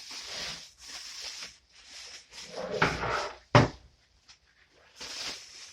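Packaging rustling and parts being handled while a miter saw is unboxed, with one sharp knock about three and a half seconds in as something is set down.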